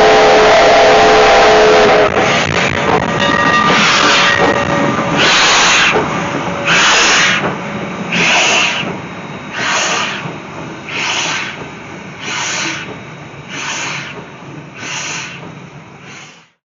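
Steam locomotive #165's whistle sounds a chord of several steady tones for about two seconds. Then the engine's exhaust chuffs slowly and evenly, about one beat every second and a half, growing gradually fainter until the sound cuts off.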